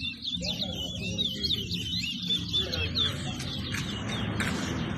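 Chestnut-bellied seed finch (towa-towa) singing a fast, twittering warble that thins out about halfway through, over a low background murmur.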